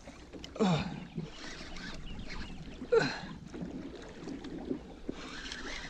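A man's short effortful grunts, one falling in pitch about half a second in and a sharper one about three seconds in, as he strains on the rod against a large hooked fish. Under them is a low steady hiss of wind and water, with a brief rush of noise near the end.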